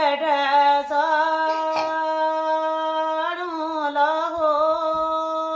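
A woman singing a Kumaoni jhoda devotional hymn unaccompanied by speech, her voice moving between notes and then holding a long, slightly wavering note.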